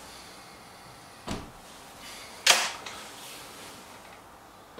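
Handling and shooting noises from a BSA Lightning SE spring-piston air rifle: a dull clunk about a second in, a loud sharp snap about halfway through, and a lighter thump at the end.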